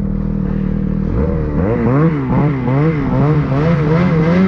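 Snowmobile engine running at a steady pitch, then from about a second in revving up, its pitch rising and falling about twice a second.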